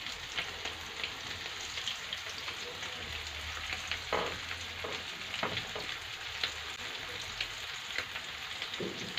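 Breaded sardine fillets frying in hot oil in a pan, a steady crackling sizzle. A few brief rustles, about four and five and a half seconds in and again near the end, come over it.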